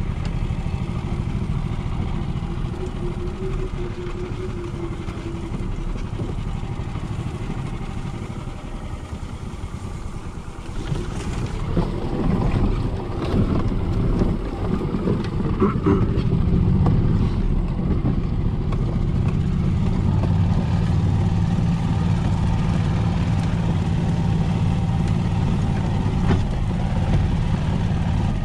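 Golf cart driving off-road over grass and through brush, its motor running with a steady low hum. It gets louder about eleven seconds in, with several seconds of knocks and rattles, then settles into a steady drone.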